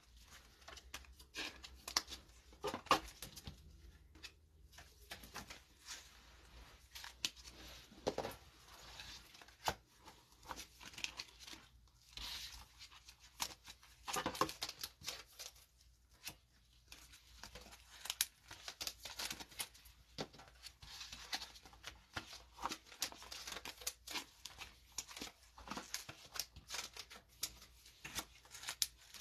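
Plastic card sleeves and cellophane pack wrappers rustling and crinkling in short, irregular scratches as trading cards are handled and slid into sleeves and toploaders.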